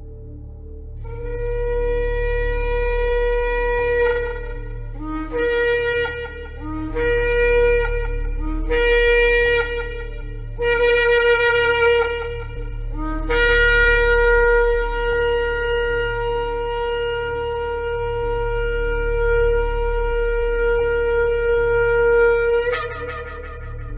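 Ram's-horn shofar blowing: a long blast, then four shorter blasts that each begin on a low note and step up to the main pitch, then a very long held blast of about nine seconds that ends with an upward break. A steady low hum sounds underneath.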